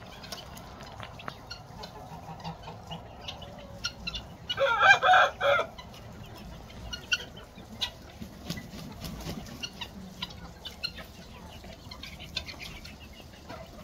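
Farmyard poultry, mostly chickens, clucking and calling in short scattered notes. About five seconds in, one loud bird call lasts about a second.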